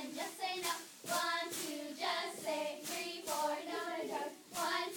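Girls' cheerleading squad chanting a cheer together in unison, with sharp rhythmic claps throughout.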